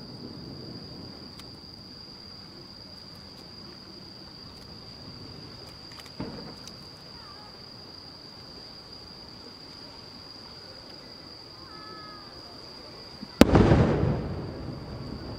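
Aerial firework shells: a faint dull thump of a shell being launched about six seconds in, then near the end a single loud, sharp bang as a large shell bursts, followed by a rolling echo that dies away.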